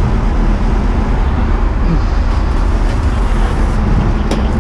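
Steady low engine drone of the fire brigade's aerial ladder truck running while the ladder moves, with a short click about four seconds in.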